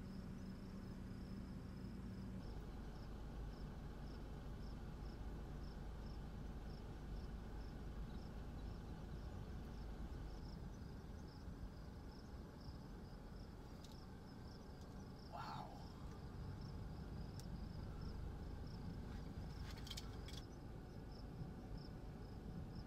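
Insects chirping in a steady high pulse about three times a second, over a low steady rumble, with a few faint short clicks.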